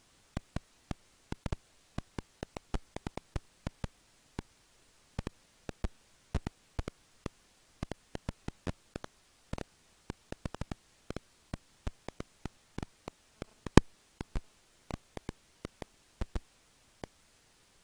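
Irregular sharp clicks, several a second, from serotine bats echolocating at the roost vent, with one much louder click near the end.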